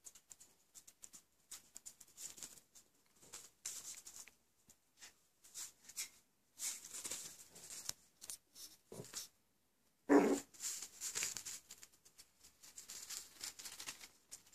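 Coton de Tuléar puppies and an adult dog playing: many small scratches, taps and scuffs of paws and claws on tile floor and puppy pads, with one short, louder dog sound about ten seconds in.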